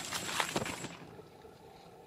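Footsteps crunching and rustling through dry fallen leaves, a crackle of many small clicks that stops about a second in.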